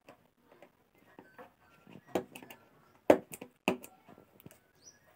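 Cardboard packaging being handled: scattered clicks, knocks and light scrapes as a headphone retail box is moved over an open shipping carton. The sharpest knock comes about three seconds in.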